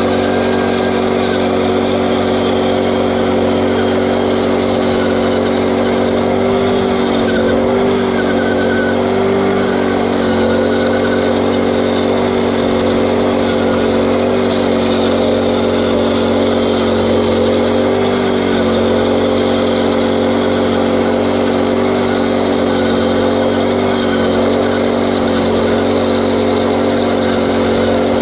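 Portable bandsaw mill's small engine running steadily under load as the band blade cuts slowly through a green ironbark log, the pitch sagging briefly now and then. The blade is blunt and the wood hard.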